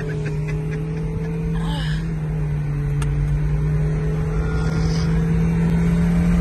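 Car running down the road, heard from inside the cabin. A steady engine hum over road rumble grows gradually louder.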